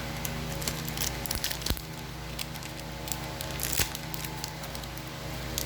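Foil trading-card booster pack crinkling and tearing open, with a few sharp clicks and rustles as cards are handled, over a steady low hum.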